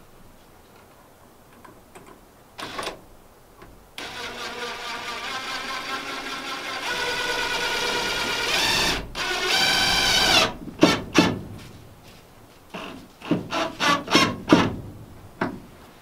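Cordless drill running steadily for about six seconds, driving in a mounting screw, growing louder as it goes, with a brief stop near the end. It is followed by a string of sharp knocks and clatter.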